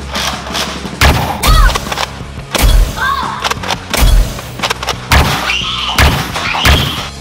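Nerf blaster fight: about seven sharp, heavy shots or impacts spread irregularly through the stretch, some followed by a short whistling sweep. They sit over background music with a steady low drone.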